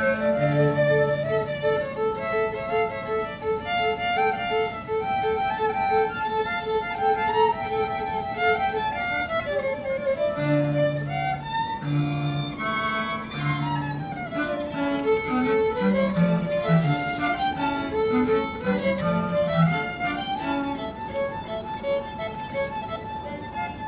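A string orchestra of violins, violas and cellos playing. A melody moves over a quickly repeated note for the first half with low notes underneath, then lines step down and back up.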